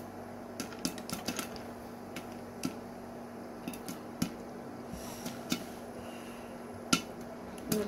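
Popcorn kernels popping inside a covered stainless-steel saucepan with a glass lid: scattered, irregular sharp pops, a cluster of quick ones about a second in and the loudest about seven seconds in, over a steady low hum.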